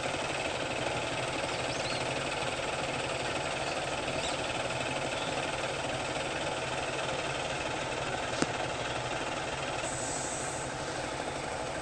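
Vehicle engine idling steadily, with one sharp click about eight seconds in.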